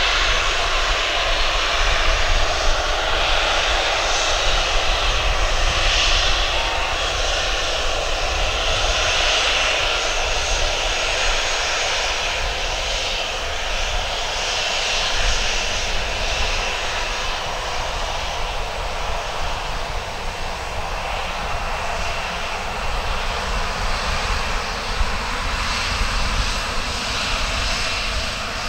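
Boeing 737-900ER's CFM56-7B jet engines running at taxi power as the airliner rolls slowly past close by: a steady rushing jet noise over a low rumble, a little louder in the first few seconds.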